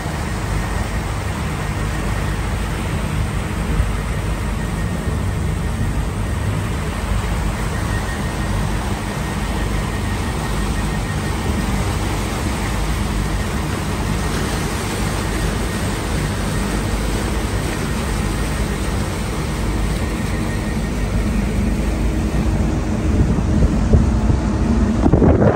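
Fast passenger boat running at speed: a steady engine drone mixed with rushing water from the wake and wind, growing louder near the end.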